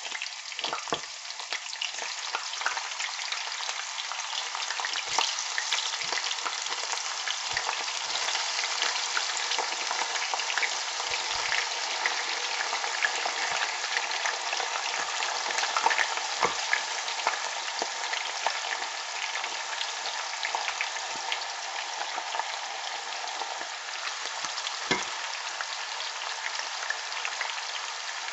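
Pieces of boiled pork sizzling and frying in hot vegetable oil with chopped onions as they are pushed from a plate into the pan, with a few knocks along the way.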